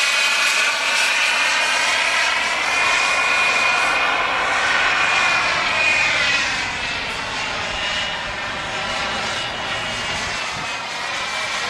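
Radio-controlled model jet whining steadily as it flies past. The pitch rises about midway, then falls away as the jet passes, and it grows a little quieter.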